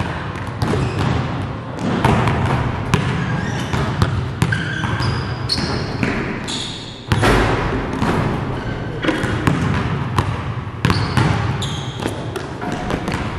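A basketball bouncing again and again on a gym floor, in irregular knocks, with a heavier thud about seven seconds in. Short high squeaks come in now and then.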